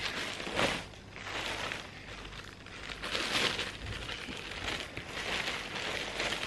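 Clear plastic packaging bag crinkling and rustling irregularly as hands handle and open it.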